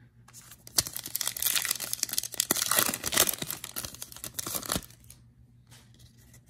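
The wrapper of a 2021 Panini Illusions football trading-card pack being torn open and crinkled by hand: a dense crackle of tearing plastic that starts just under a second in and stops at about five seconds.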